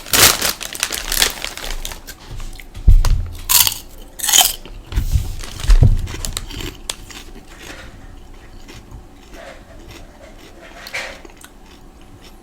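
A person biting into and chewing crunchy fried pork rinds right at the microphone. There are loud crunches in the first half, and the chewing goes quieter over the last few seconds.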